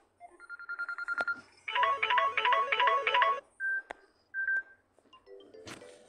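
Samsung Galaxy Tab A8 built-in ringtones previewed one after another, each cut short. First comes a fast-repeating electronic trill, then a louder rapid multi-tone ringing, then two short single beeps, and near the end a lower bubbly tone starts. Brief clicks fall between them.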